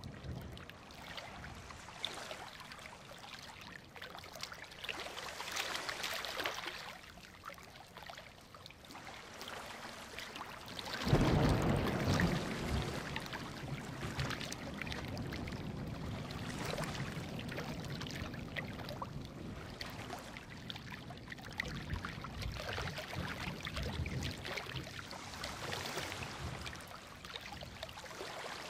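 Ocean surf washing onto a beach in slow swells, with a sudden deep crash about eleven seconds in, the loudest moment, before the surf settles into a steady wash.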